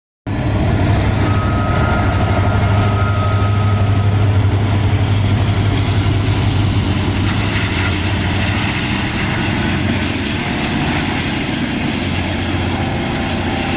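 Diesel-electric locomotive running: a steady, heavy low drone over dense mechanical noise, with a faint high whine that slowly rises in pitch.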